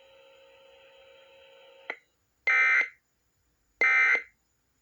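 Emergency Alert System end-of-message (EOM) signal: two harsh half-second digital data bursts, about a second apart, marking the end of the alert. Before them there is a faint steady hum and a click.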